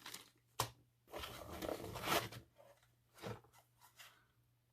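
Packaging being handled: a sharp click, then a second or so of rustling, and a few lighter clicks and knocks.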